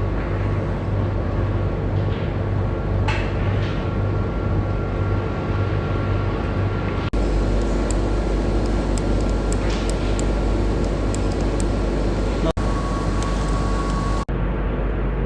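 Machinery of an LED welding production line running: a steady mechanical hum with faint steady tones and light ticking, its character changing abruptly a few times.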